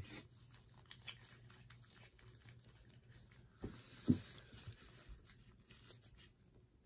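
Foam sponge brush dabbing and rubbing alcohol ink over a metal tray: faint scratchy scuffs and ticks, with two soft knocks about halfway through.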